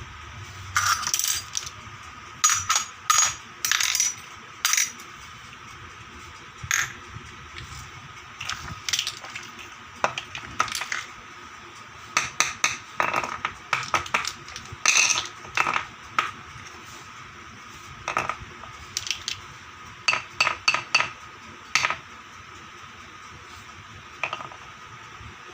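Small toy kitchen pieces clicking and clacking against each other as they are handled, in irregular clusters of short sharp taps.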